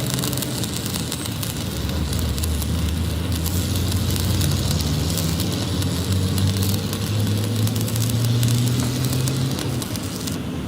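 An engine running steadily with a low hum that shifts pitch slightly partway through, under a continuous crackling hiss.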